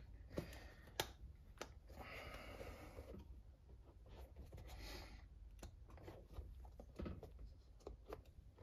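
Faint rubbing and squeezing of a rubber RC monster-truck tire with a closed-cell foam insert as it is pressed and kneaded by hand, with a few light clicks. Near the end the tire's bead is worked onto its wheel.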